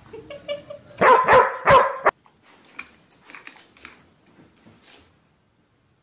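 A dog barking: a quick run of loud barks about a second in that cuts off suddenly, followed by a few faint short sounds.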